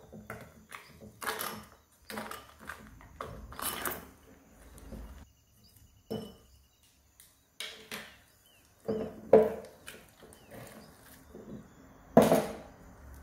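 A plastic spoon stirring thick, wet slime in a ceramic bowl: irregular squelches mixed with scrapes and knocks of the spoon against the bowl, with a louder knock near the end.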